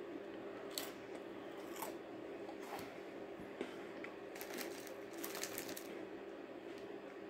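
A Parle-G glucose biscuit being bitten and chewed: faint dry crunches about once a second, thickening into a run of crunching a little past the middle, over a steady low hum.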